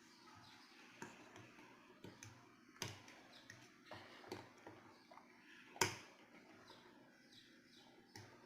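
Scattered light clicks and taps, with two sharper knocks about three and six seconds in, the second the loudest.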